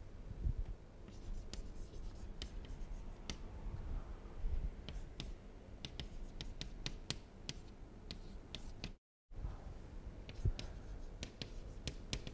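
Chalk writing on a blackboard: a string of quick taps and scratches as the chalk stick forms letters. The sound cuts out completely for a moment about nine seconds in.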